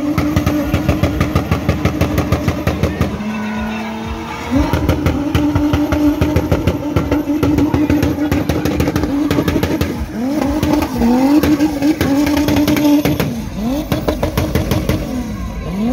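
Car engine held at high revs during a smoky burnout and drift, rear tyres spinning on the tarmac. The engine note dips lower for about a second around three seconds in, then from about ten seconds in the revs swing up and down repeatedly as the throttle is worked.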